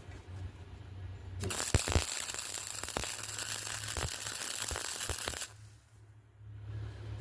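Electric arc welding: the arc crackles and spits loudly for about four seconds, starting about a second and a half in and cutting off abruptly as the arc is broken. A steady low hum runs beneath it.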